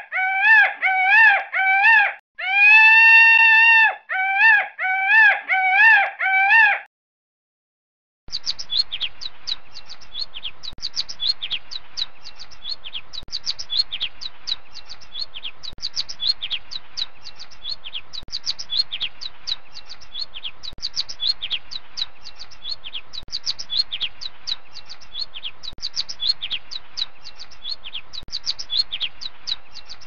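House sparrows chirping, a rapid, steady run of short high chirps, several a second, that starts about eight seconds in. Before it comes a string of clear, pitched whistling calls that bend up and down and stop about seven seconds in.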